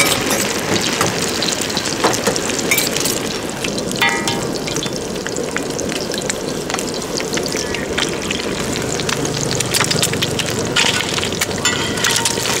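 Thai-style omelet of egg, chopped vegetables and sausage sizzling and crackling in hot oil on a large flat iron pan, a steady frying hiss with many small pops.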